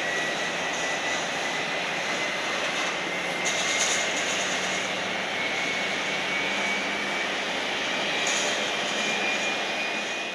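Jet engine noise from a Korean Air Airbus A330 being pushed back by a tug: a steady rush with a high whine that slowly rises in pitch, as an engine spools up.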